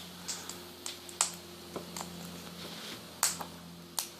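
King parrot's beak clicking and cracking as it eats: sharp, irregular clicks, about half a dozen in four seconds, over a faint steady low hum.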